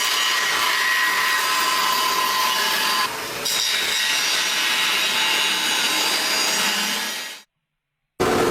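A power saw cutting through wood: a steady rasp with a faint whine, dipping briefly about three seconds in and stopping abruptly near the end.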